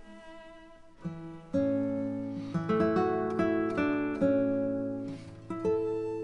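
Background music on plucked acoustic guitar: single notes and chords that ring and fade, starting about a second in.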